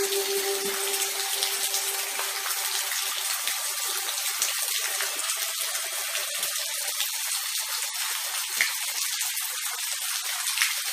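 Steady rain falling, an even rushing hiss with no thunder. A few faint held tones fade out in the first few seconds.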